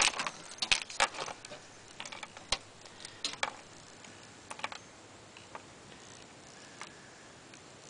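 Raccoon shifting about and feeding in a wire cage trap: irregular sharp clicks and ticks. They come thickly in the first second and a half, then thin out to single ticks a second or so apart.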